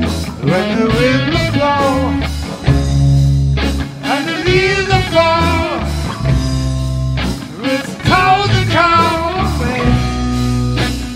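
Blues-rock band playing, with a guitar lead whose notes bend up and down in pitch over bass and drums.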